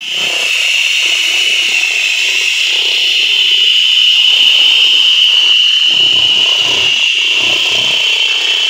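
3 kW handheld fibre-laser cleaning gun firing on bare steel, ablating the surface layer before powder coating: a loud, steady high-pitched whine with an uneven, crackling noise underneath.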